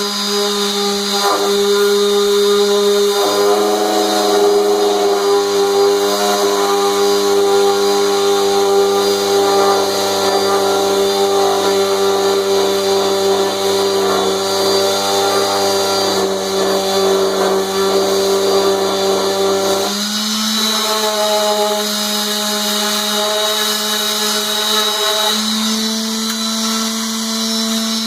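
Power-sanding on a wood lathe: electric motors running steadily with a humming whine. The pitch steps to a new, slightly higher set of tones about 20 seconds in.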